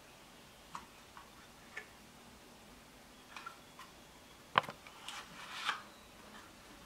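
Irregular light clicks and taps, the loudest a single sharp knock about two-thirds of the way through.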